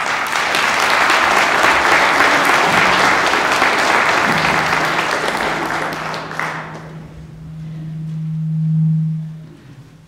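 A congregation applauding, the clapping dying away after about six seconds. Under the end of it, a steady low hum comes in, swells and then fades out.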